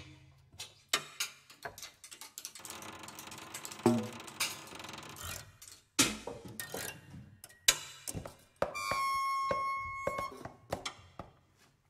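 Sparse free-improvised music made with extended techniques on prepared piano and tuba: scattered taps, clicks and knocks, a rustling scrape, a few short struck notes, and one held high tone lasting over a second about nine seconds in.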